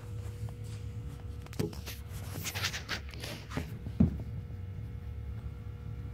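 Handling noise on a handheld phone's microphone: rustling and knocking as a hand and a sweatshirt brush over the phone, with one sharp bump about four seconds in, over a steady low hum.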